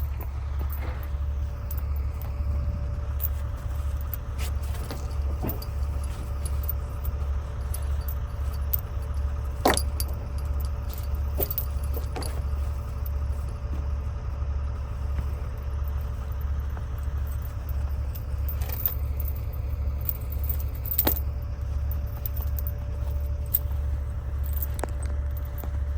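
Logging truck's diesel engine running steadily with a low, even drone, with light rattles and a few sharp clicks over it.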